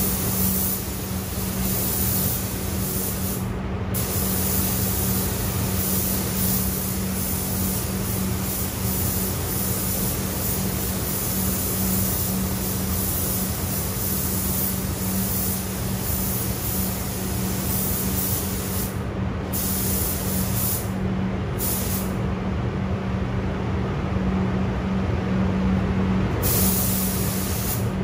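Compressed-air paint spray gun hissing steadily as it lays a coat of paint. The hiss cuts out briefly twice about two-thirds of the way through, then stops for a few seconds near the end while a steady low hum carries on underneath.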